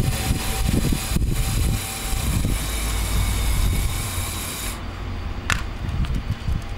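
Small electric motors and plastic gearing of a Lego Technic recovery truck's crane whirring as the winch hoists a Lego front loader by its rear, over a low rumble. The high part of the whirr stops about five seconds in.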